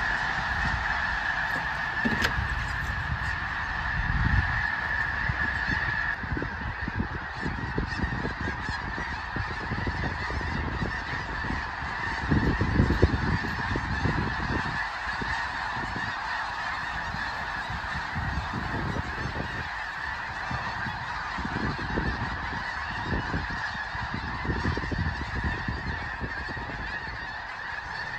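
A huge flock of snow geese calling overhead: a dense, continuous din of thousands of overlapping honks.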